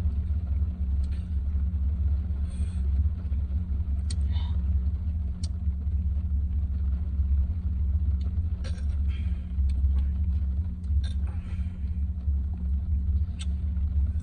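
A steady low rumble with a constant hum, with a few faint short clicks scattered through it.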